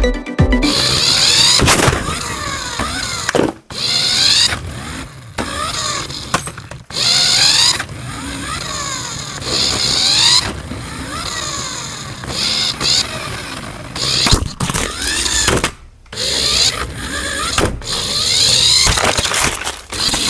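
Small electric motor and gears of a toy RC vehicle whirring loudly, pitch rising and falling as it speeds up and slows, cutting out briefly a few times.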